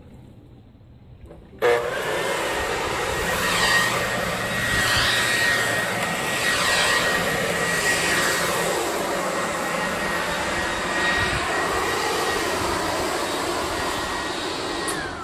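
Corded electric leaf blower switched on about a second and a half in, running with a steady high whine over a rush of air. Near the end it is switched off, and the whine falls as the motor spins down.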